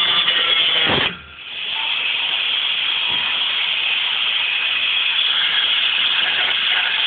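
A power cutting tool slicing through the steel rear panel of a car, a steady rushing noise as it throws sparks. The sound drops out abruptly about a second in and builds back up over the following second.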